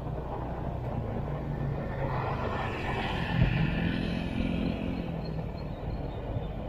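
A vehicle engine running steadily while moving through street traffic. A louder passing-traffic sound swells from about two to four seconds in, with a short thump about three and a half seconds in.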